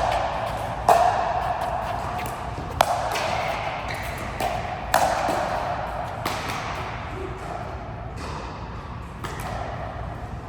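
A rally of sharp ball-and-racket strikes, about one every one to two seconds, each ringing on briefly in a reverberant hall.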